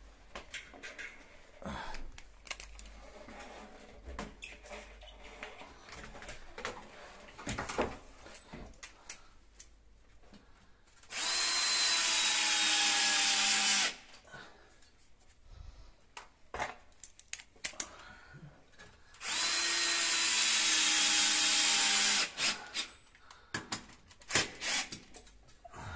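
12 V cordless drill-driver driving the screws that fix a boiler's wall bracket, in two runs of about three seconds each with its whine sagging slightly in pitch. Clicks and knocks of handling come between the runs.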